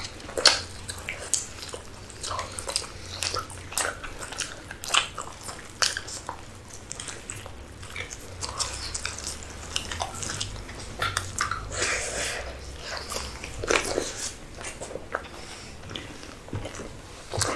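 Close-miked eating: a person biting and chewing food, a dense, irregular run of short sharp clicks and mouth noises.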